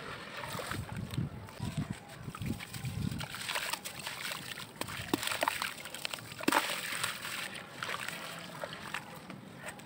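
Hands squishing wet, gritty sand-cement sludge and crumbling a dry chunk of it into a tub of water: irregular sloshing and splashing, with sharp little crackles and clicks as the grit breaks up.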